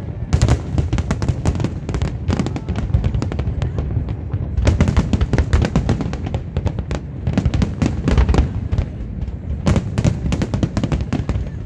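Fireworks display at its height: many shells bursting in quick succession, overlapping bangs and crackle several times a second over a low rumble, with denser clusters of sharp reports about five and ten seconds in.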